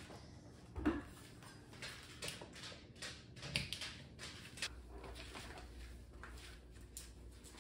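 Scattered knocks and clicks of an electric meat grinder being handled and its power cord plugged into a wall outlet; a faint low hum comes in about two-thirds of the way through.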